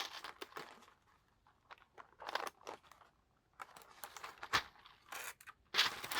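Scattered light clicks and crinkling from a mechanical keyboard and its plastic keycaps being handled, in irregular short bursts with brief quiet gaps.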